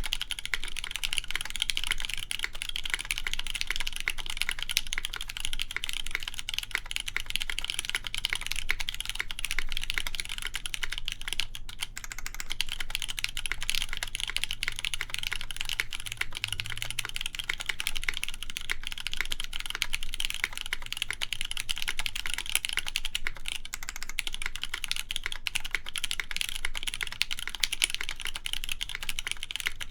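Continuous fast typing on a mechanical keyboard with lubed linear Cherry MX Black Clear Top switches, a polycarbonate plate and GMK keycaps: a dense, steady stream of key clacks.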